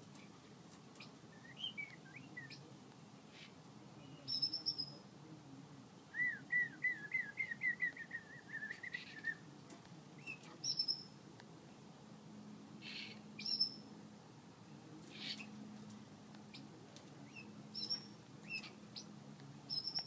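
American Singer canary calling with short, high chirps every few seconds, and breaking into a rapid trill of repeated, slightly falling notes for about three seconds around the six-second mark.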